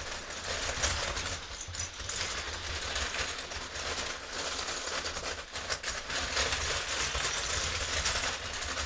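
Loose plastic LEGO bricks clattering and rattling as the LEGO Technic 4x4 X-treme Off-Roader RC car's motor-driven tyres churn through the pile, a dense run of quick clicks that never lets up.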